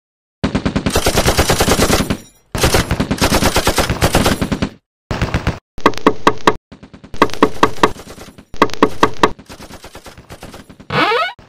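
Video-game automatic gunfire sound effects, rapid machine-gun fire in several long bursts with short breaks between them. Near the end comes a brief rising pitched sound.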